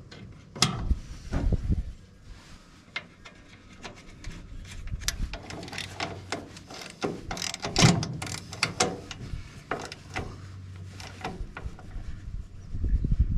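Hand work on a hay baler's airbag slide bushings: irregular metallic clicks, clinks and knocks of parts and tools being handled, busiest in the middle, with one louder knock about eight seconds in.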